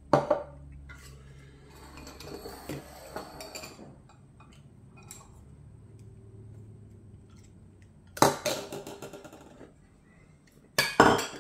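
Ceramic bowls, a metal spoon and chopsticks clinking and clattering as they are picked up and set down while the table is cleared after the meal. There is a sharp clink at the start, light clatter a couple of seconds in, a louder clatter about eight seconds in, and a few quick knocks near the end.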